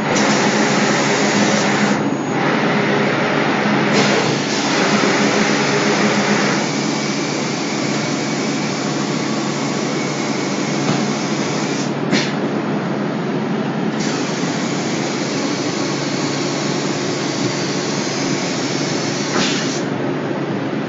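Automatic door spray painting machine running: a steady hiss of spraying over a steady motor hum. The hiss thins out briefly about two seconds in, and again for a couple of seconds past the middle.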